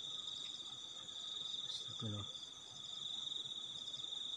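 Night insects, crickets, trilling in a steady, continuous high chorus. A short low human vocal sound breaks in about two seconds in.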